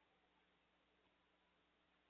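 Near silence, with only a faint steady hiss and low hum.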